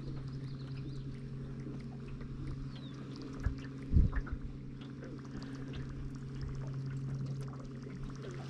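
Electric trolling motor humming steadily as the boat moves, with water lapping and trickling against the hull. Two dull knocks about three and a half and four seconds in.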